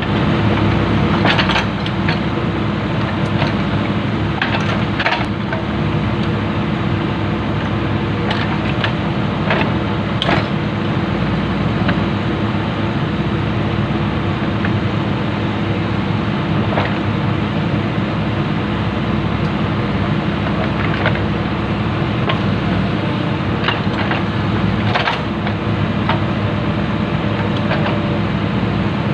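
Komatsu PC-200 excavator's diesel engine running steadily, with about ten sharp knocks scattered over it as the track is worked on.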